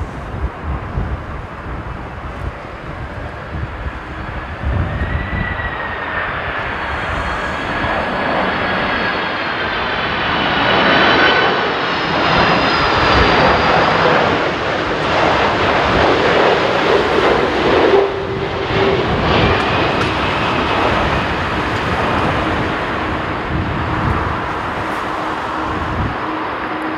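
Boeing 767-300ER airliner's jet engines on final approach: a steady rumble with faint whining tones that bend gently up and down in pitch, growing louder as the jet passes close and easing a little as it flies on to touchdown.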